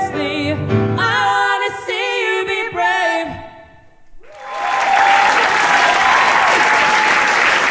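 Singers hold the final notes of a song with vibrato, cutting off about three seconds in. After a brief hush, an audience breaks into steady applause a little past four seconds.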